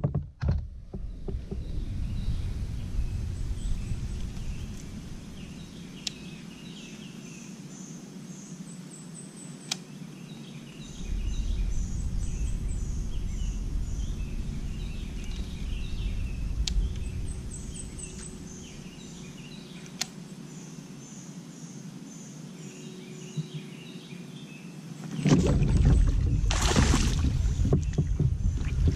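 Open-air ambience on a kayak: a low wind rumble on the microphone that fades for several seconds twice and swells loud again near the end, under songbirds chirping steadily in the trees, with a few single sharp clicks.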